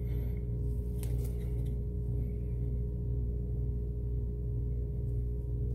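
Steady low hum made of several held tones, unchanging throughout, with a few faint clicks about a second in as a small circuit board is handled.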